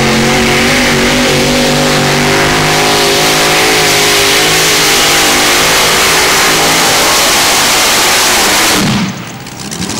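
Multi-engine modified pulling tractor running flat out under load as it drags the weight sled, a loud, steady engine sound whose pitch wavers slightly. The engines cut off sharply about nine seconds in, at the end of a full pull.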